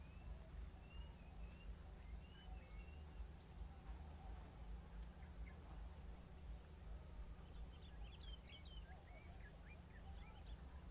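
Quiet open-air ambience: a low steady rumble with faint, scattered small bird chirps, a quick cluster of them a little before the end.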